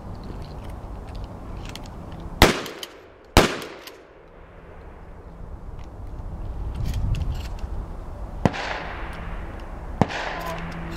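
Two shotgun shots about a second apart, fired as a two-round volley on command, each with a short echo. Fainter pops follow later.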